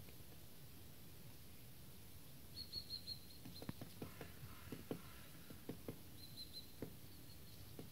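Woodpecker pecking at wood while feeding: single knocks at an irregular pace rather than a drumming roll, starting about two and a half seconds in. Two short runs of high bird chirps come in alongside.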